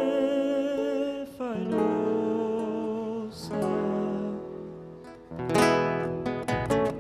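Folk music with held notes and a chord that fades out, then an acoustic guitar strumming chords from about five and a half seconds in. This is an instrumental passage of a refalosa.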